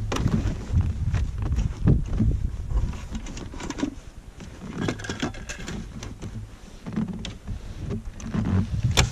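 Crunching snowshoe steps in snow and knocks and clatter of gear being packed into a snowmobile's rear cargo box, over a low, uneven rumble. A sharp clack comes near the end.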